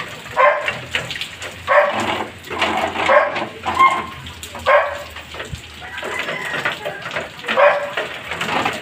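Rain falling steadily on a concrete alley, with a series of short, high yelps and a pause of a few seconds after the middle.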